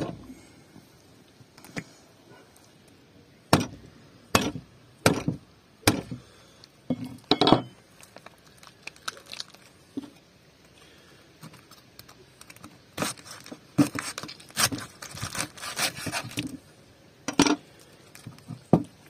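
Knife chopping through the nose bone of a singed sheep's head on a wooden chopping board: a sharp crack at the start and a run of four blows a few seconds in. Later comes a stretch of crackling and tearing as the split nose section is pulled apart by hand.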